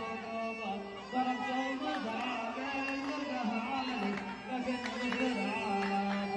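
Yemeni Shabwani sharh music: a melody of held notes stepping up and down over light drum strokes.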